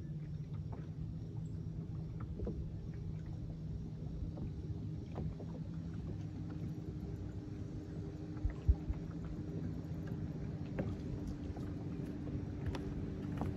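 Electric trolling motor on a fishing boat's bow humming steadily, with water moving against the hull. A couple of sharp knocks on the boat come about two-thirds of the way through.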